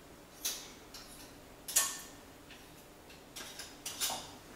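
A few sharp clicks and taps of a kitchen utensil knocked against a plastic mixing bowl, scraping off sticky cake batter: single taps spaced out, then a quick run of taps near the end.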